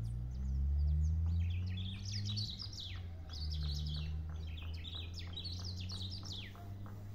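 Black-throated grosbeak (bico-de-pimenta) singing a rapid run of high, falling notes, starting about a second in and stopping near the end, over a low steady drone.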